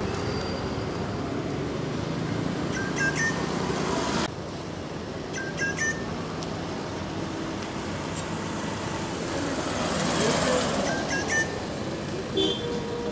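A rufous treepie gives several short, sharp calls, a few seconds apart, over a steady background of road traffic noise that swells near the middle.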